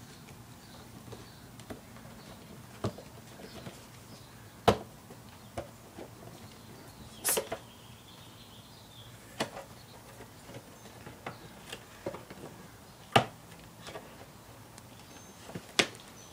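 Empty cardboard cereal box batted and knocked about on a tile floor by a playing kitten: scattered, irregular sharp taps and knocks, the loudest about five, thirteen and sixteen seconds in, with a short rattling cluster around seven seconds.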